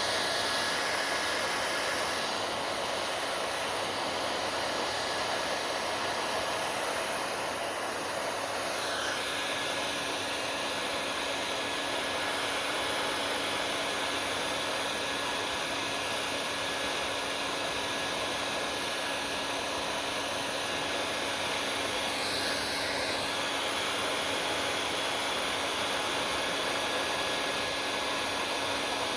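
Hair dryer running steadily: a constant rush of blown air with a thin, steady whine in it, its tone shifting slightly a couple of times.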